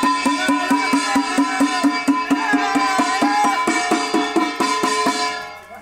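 Indian music with a fast tabla beat, about five strokes a second, under a melody, played through a horn loudspeaker. It stops near the end.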